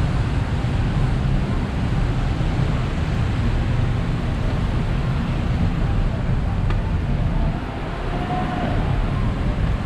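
Steady city traffic on rain-wet roads, a dense rumble and hiss of many vehicles, with low wind rumble on the microphone.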